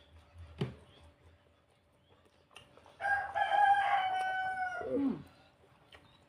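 A rooster crowing once, about three seconds in: one held call of about two seconds that drops in pitch at the end. A short sharp click comes earlier.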